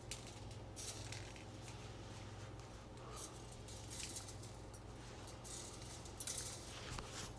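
Hands handling a dryer's coiled heating-element wire and its element housing: irregular light scratching and rustling, a little louder around four seconds in and again near the end, over a steady low hum.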